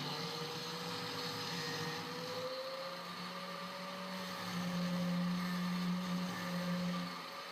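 Electric angle grinder running with a steady whine while its wheel cuts into steel, under a hiss. The pitch rises slightly about two and a half seconds in, and it grows louder for a couple of seconds near the end.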